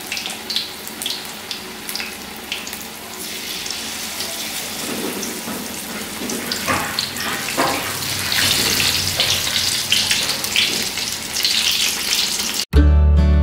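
Batter-coated jackfruit-rind pieces deep-frying in hot oil in a wok: a steady sizzle with scattered crackles, growing louder about four seconds in. Near the end it cuts off suddenly and acoustic guitar music starts.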